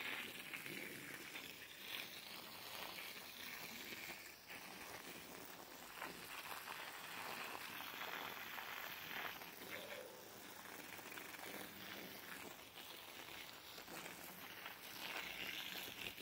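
Water from a handheld garden hose spattering and hissing steadily onto bare soil, a little stronger near the end.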